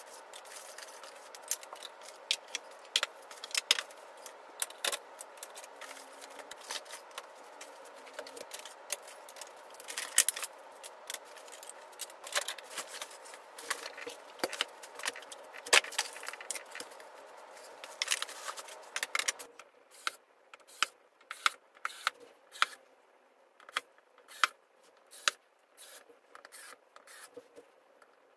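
Flat-pack furniture being unpacked: wooden panels, foam blocks and cardboard knock, clatter and scrape against each other in irregular sharp knocks. About two-thirds of the way through the background hum drops away and regular sharp clicks follow, roughly one or two a second, as screws are driven with a hand screwdriver.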